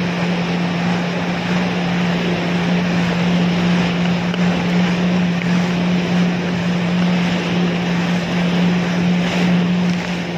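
Yamaha WaveRunner jet ski running at a steady cruising speed, its engine a constant low hum under the rush of water spray and wind buffeting the microphone.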